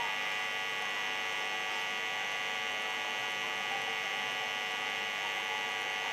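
Steady electrical hum and buzz, made of many fixed tones at an unchanging level.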